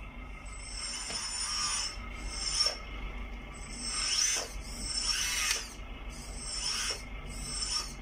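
Hydraulic system of a radio-controlled model skid steer loader whining in about six short bursts as its bucket and loader arms are worked from the transmitter, the high whine sliding up and down in pitch with each stick movement.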